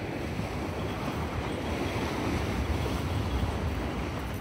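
Wind buffeting the microphone, a steady low rumble, over the wash of sea surf.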